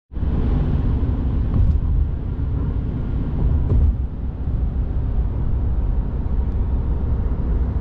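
Steady low rumble of road and engine noise inside a moving car's cabin at highway speed.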